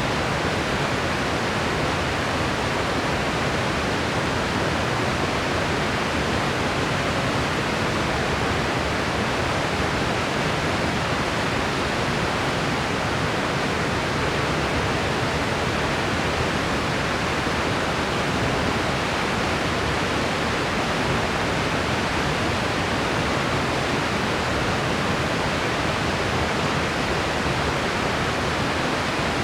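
Steady white-noise hiss, perfectly even and unchanging, spread evenly from deep to high with no separate sounds in it.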